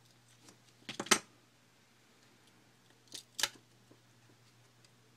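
Small tools and phone parts clicking and tapping against each other and the work surface as the repairer handles the freed screen assembly. There is a sharp double click about a second in and two more clicks about two seconds later.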